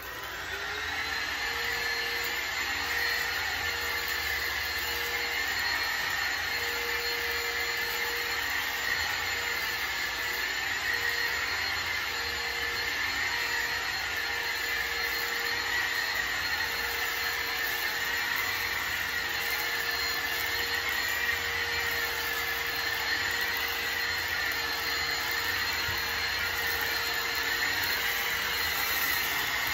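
Bissell ReadyClean Cordless 10.8V stick vacuum running on a shag rug, coming up to full level in the first second, then running steadily. A high whine wavers slightly in pitch throughout.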